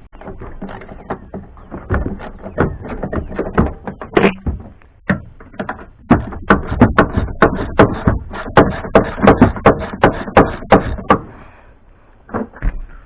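Repeated hard hammer blows on metal, about three a second, with a short pause around five seconds in and stopping about two seconds before the end: hammering at the truck's door hinge to drive out a worn hinge pin.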